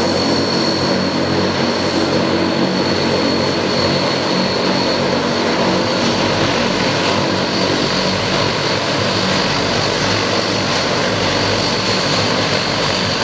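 Turboprop engines of a Transall C-160 military transport plane running: a steady loud drone with a constant high whine over it.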